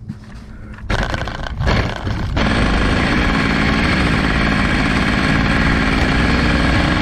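Water-cooled Zenoah G300PUM two-stroke engine on a spindle-drive Go-Ped Sport pulling away under load. It comes up about a second in and from about two and a half seconds runs steadily at high revs on a top-speed run, with wind rushing over the fork-mounted camera.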